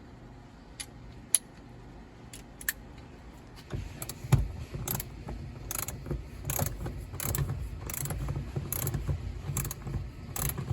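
Ratchet wrench on an extension clicking as a seat-belt anchor bolt is driven into a threaded hole in the body. There are a few scattered clicks at first. From nearly four seconds in, the ratchet clicks steadily, about one stroke every 0.7 s, over a low rumble of the bolt turning.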